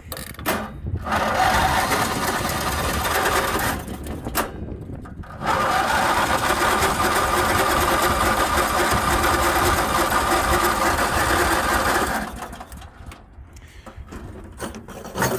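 Murray riding mower's electric starter cranking the engine in two long tries, one of about three seconds starting about a second in and one of about seven seconds that stops about 12 seconds in. The engine does not catch because the fuel tank has run dry.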